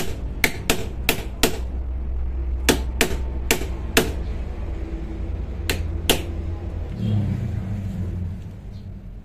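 A stone knocking on the handle of a screwdriver seated in a motorcycle handlebar's bar-end weight bolt, to shock the seized bolt loose. About a dozen sharp knocks come in uneven bursts and stop about six seconds in, followed by a low hum near the end.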